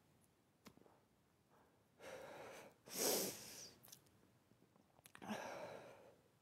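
A woman breathing audibly close to the microphone: three short, airy breaths or sighs, the middle one the loudest.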